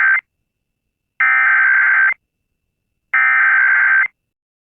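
Emergency Alert System SAME header data bursts, generated in the style of a SAGE EAS encoder/decoder: a fast, buzzy warble of two alternating tones. The end of one burst is heard, then two full bursts, each about a second long with about a second of silence between them. This marks the start of an emergency alert.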